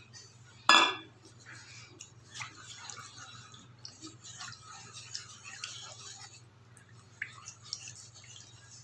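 Wooden spatula stirring milk in a non-stick frying pan, with scattered scrapes and clicks against the pan. A single sharp knock on the pan about a second in is the loudest sound. A low steady hum runs underneath.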